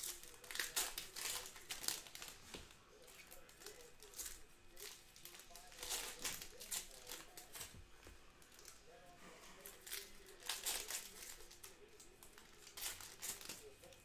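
Panini Prizm foil card pack wrappers crinkling and tearing as packs are ripped open by hand, in several bursts with short pauses between.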